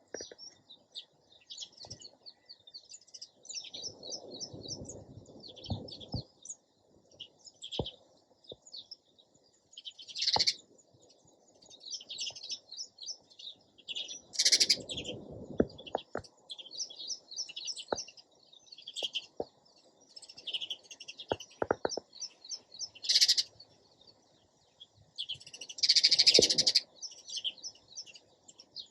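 Sparrows chirping continuously in quick series of short chirps and trills, with a few louder bursts of chirping. Faint low rustling now and then underneath.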